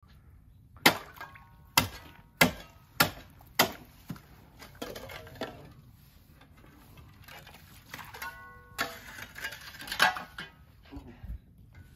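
Snow shovel blade chopping into a frozen swimming pool's ice sheet, about two inches thick: five sharp strikes in quick succession starting about a second in, then softer cracking and knocking of broken ice, and two more hard strikes later on.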